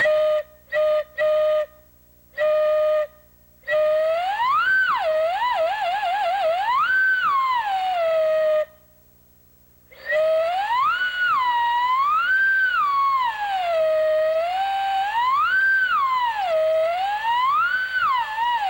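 Lunkenheimer Mockingbird variable-pitch whistle blown on compressed air: four short toots, then long blasts with the pitch sliding up and down over and over, with a quick warble about six seconds in and a short break near the middle.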